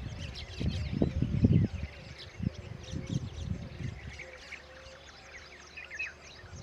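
Many small birds chirping busily in quick, overlapping calls. Low rumbling thumps sound through the first half, loudest about a second in, and fade out after that.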